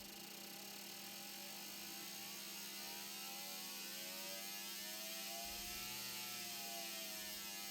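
Fuel injector test machine running a test on GDI injectors: a steady hum and hiss, with a tone that climbs for about four seconds and then falls back near the end as the simulated engine speed is swept.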